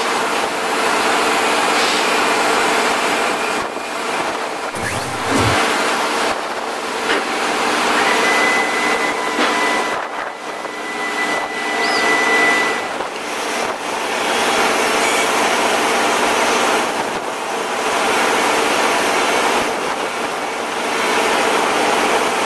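Steady machinery drone, a constant engine-like hum with several steady tones under it. A thin high whine is held for several seconds near the middle.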